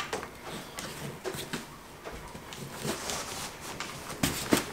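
Scattered clicks and knocks of a folding stroller wagon's handle and frame being handled. There is a sharp knock at the start and a small cluster of knocks near the end.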